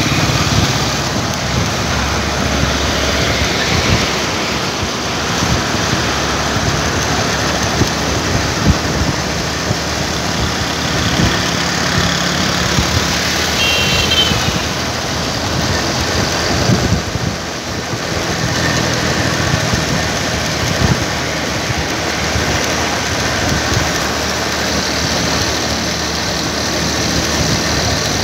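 Steady engine running and road and wind noise from a moving road vehicle, heard from on board, with the rush of air fluctuating over the microphone.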